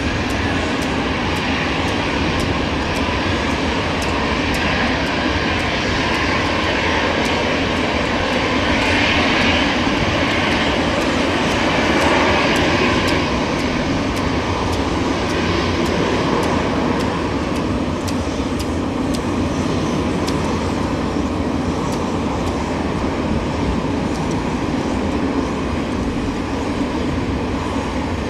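Jet engines of a taxiing Airbus A320-family airliner: a steady hiss with a high whine, swelling a little around ten to thirteen seconds in.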